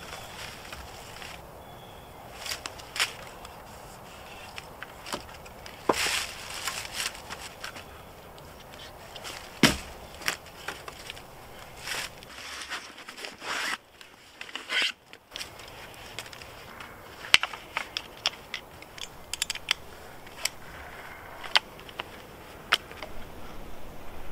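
Scattered rustles, scrapes and clicks of jute twine being pulled taut and wrapped around a wooden crossbar pole lashed to a tree trunk, with shuffling in dry leaf litter.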